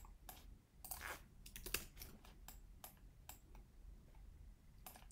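Faint, irregular clicks of a computer keyboard and mouse, about nine short taps spread unevenly.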